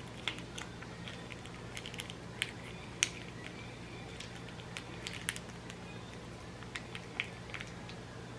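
Scattered crinkles and sharp clicks of a plastic instant-noodle sauce packet being handled, torn and squeezed, the loudest about three seconds in, over a steady low hum.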